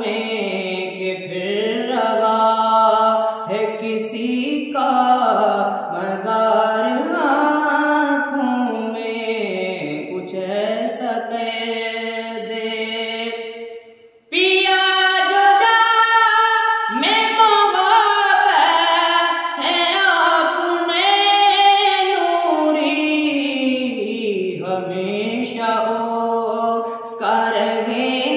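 A man singing a naat, an Urdu devotional poem, solo and unaccompanied, in long drawn-out, ornamented phrases. He breaks off for a short breath about halfway through, then goes on.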